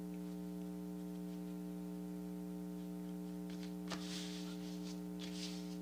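Steady electrical mains hum made of several even tones. Faint paper rustles about four seconds in as a glued sheet is smoothed down by hand.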